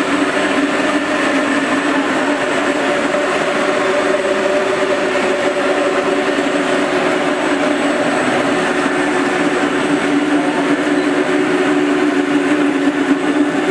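Gigantic Genie four-headed concrete floor grinder and polisher running on concrete: a steady machine hum over an even grinding noise.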